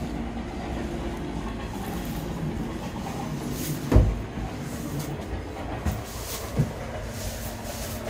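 Footsteps and handheld-camera handling noise as someone walks across a debris-strewn floor, over a steady low rumble, with one sharp thump about four seconds in and a smaller knock near the end.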